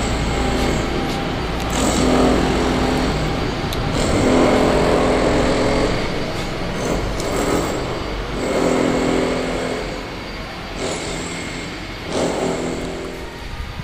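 Road traffic: engines swell and fade as vehicles pass, over a steady low hum.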